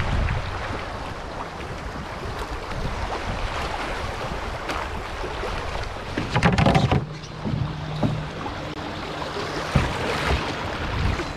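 Fast river current rushing around a canoe, with paddle strokes splashing and wind buffeting the microphone; the water gets louder for a moment about six and a half seconds in.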